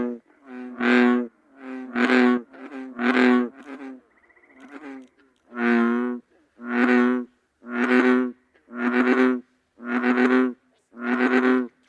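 Bullfrog calling: a run of deep, droning croaks about one a second, each lasting about half a second. Four come in a row, then a pause of about two seconds, then six more.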